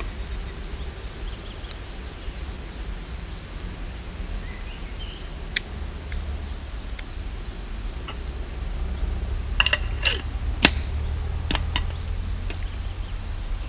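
Scattered sharp clicks and light knocks, several in quick succession about ten seconds in, over a steady low rumble.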